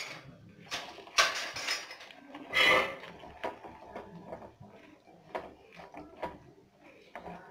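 A metal spoon stirring thick rice-flour batter with grated carrot and chopped onion in a bowl, scraping and clinking against the sides. Irregular clicks throughout, with louder scraping about a second in and again around two and a half seconds in.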